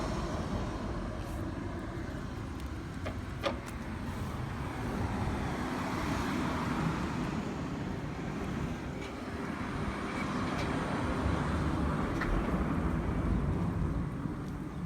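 Yamaha SR400's air-cooled single-cylinder four-stroke engine running, its level swelling and easing slightly, with a few sharp clicks about three and a half seconds in.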